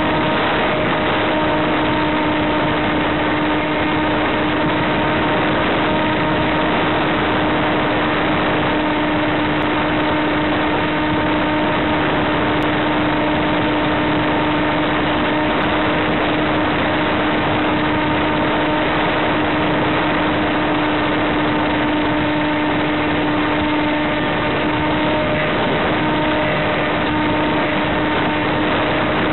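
Electric motor and propeller of a small FPV model plane running at a steady throttle, heard from on board: a constant whine over a dense, even hiss of rushing air.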